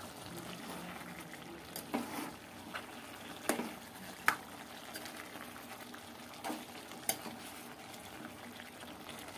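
A spoon stirring chicken curry as it simmers in the juices released by the chicken, with a faint steady simmer under about six sharp clinks of the spoon against the pan.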